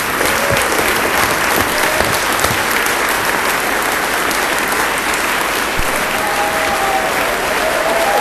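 An audience applauding, a steady dense clatter of many hands clapping.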